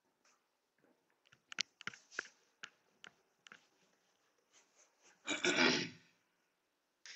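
Whiteboard being wiped with a duster: scattered light taps and knocks, then a louder rubbing stroke about five seconds in.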